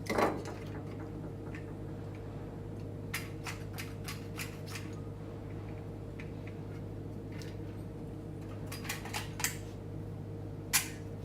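Scattered light clicks and taps from handling an adhesive cartridge and cutting tool while preparing to lay a glue bead, over a steady electrical hum. A sharper click comes just after the start and another near the end.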